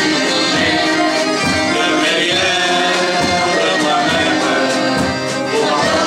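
Live band performing a song: several voices singing together over accordion, keyboard, acoustic guitar and drums, with a steady drum beat.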